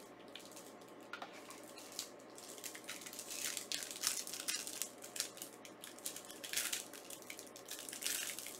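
Packaging being handled and opened, crinkling and rustling in irregular bursts that start about three seconds in.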